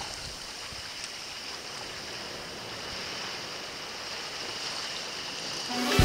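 Steady wash of small sea waves on a rocky shore, an even hiss with no distinct events. Music starts at the very end.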